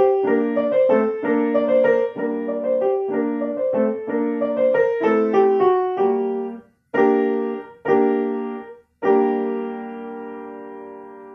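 Solo piano playing a melody over chords in quick steady notes, then three separate chords about a second apart, the last one held and fading away as the piece ends.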